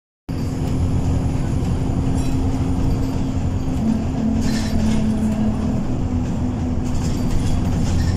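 Interior of an Alexander Dennis Enviro200 single-decker bus under way: a steady engine drone and road rumble through the saloon. A second engine tone joins about four seconds in as the note shifts, with a few faint clicks and rattles of the fittings.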